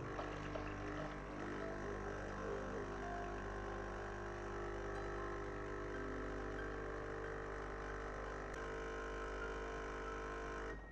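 Jura Z6 bean-to-cup coffee machine's pump humming steadily as it dispenses the water for a coffee, then cutting off near the end.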